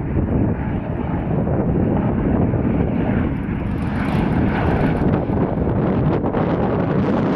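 An Airbus Helicopters AS350B3 (H125) Ecureuil's rotor and turbine running close by, a loud steady din. From about five seconds in, gusts of rotor wash buffet the microphone.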